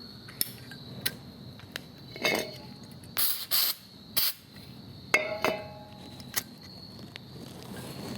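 Short hisses of an aerosol brake cleaner can being sprayed, among scattered clicks and a ringing metal clink about five seconds in.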